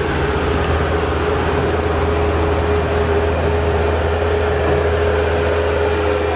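Bobcat skid-steer loader's diesel engine running steadily as the machine drives slowly past, with a steady whine over its low drone.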